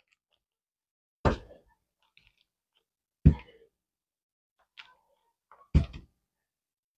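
Three short, dull thunks about two seconds apart as a knife slices pats off a stick of margarine.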